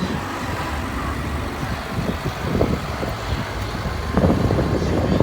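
Combine harvester's diesel engine running steadily, with louder bursts of noise about two and four seconds in.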